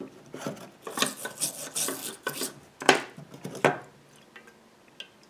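Small brush and metal parts scraping and stirring in a small metal can of paint thinner, then two sharp metallic clinks about three quarters of a second apart as the repulsion-induction motor's short-circuiting necklace is lifted out against the can, followed by a few faint ticks.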